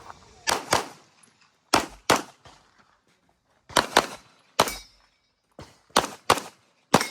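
Handgun shots fired in quick pairs, double taps, about a dozen in all, as the shooter works through targets in an IPSC practical shooting stage.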